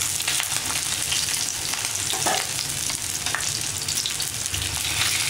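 Oil sizzling and crackling steadily as two potato-stuffed Indian mackerel pan-fry, with a metal spatula shifting the fish in the pan and a few brief louder crackles.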